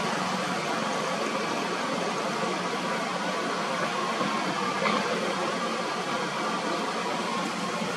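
Steady hiss of outdoor background noise, with a faint thin tone running through it and a brief click about five seconds in.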